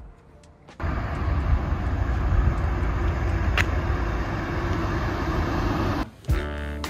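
Road traffic noise: a steady rush with a heavy low rumble that starts abruptly about a second in and cuts off near the end, with a single click in the middle.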